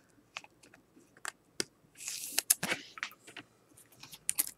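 1989 Topps football cards being flipped through by hand, cardboard sliding against cardboard: a string of light snaps and clicks, with a short papery swish about two seconds in.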